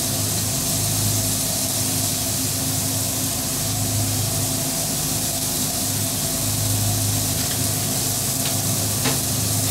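Seasoned chicken sizzling on a flat-top griddle, a steady hiss, over the steady low hum of running machinery. A light click sounds near the end.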